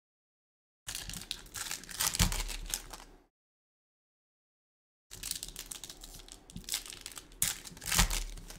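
Foil wrappers of Topps Chrome Formula 1 card packs crinkling and tearing open in two bursts, the first starting about a second in and the second about five seconds in.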